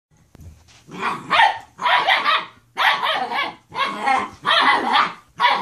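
Dogs at play, barking in short bursts about once a second, starting about a second in.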